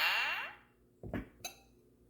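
Glass clinking: a ringing glass clink dies away with a falling sweep of tones over the first half second, then two light clinks come about a second in.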